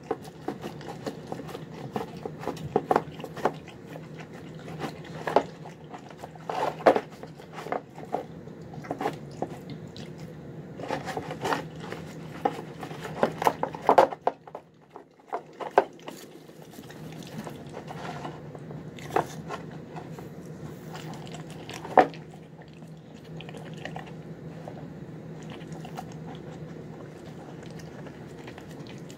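A dog eating a wet meal of chicken, rice and egg from a bowl: irregular chewing and smacking with sharp clicks and knocks in the bowl, pausing briefly about halfway. A steady low hum runs underneath.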